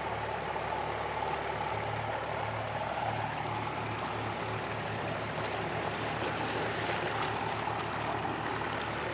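Floodwater rushing steadily over a creek crossing, with a tractor engine running under it at a steady low pulse.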